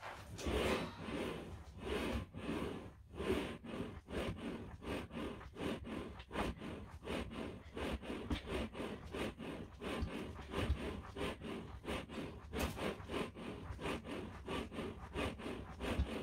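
Kneeling ab-crunch machine worked in quick repetitions: its knee carriage sliding back and forth on the rails gives repeated rubbing, scraping strokes in an even rhythm.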